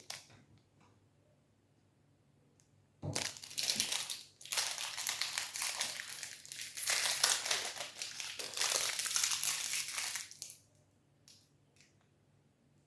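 Plastic protein bar wrapper crinkling loudly in uneven bursts as it is handled and opened, starting about three seconds in and stopping shortly before the end.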